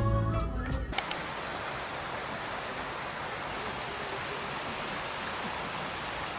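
A small garden waterfall falling over rocks: a steady, even rush of water. In about the first second the tail of soft guitar music is heard, cut off with two sharp clicks.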